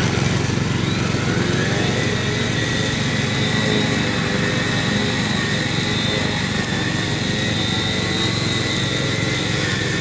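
Tracked remote-controlled lawn mower running steadily while cutting tall grass, with a high whine that rises slightly in pitch in the first two seconds and then holds steady.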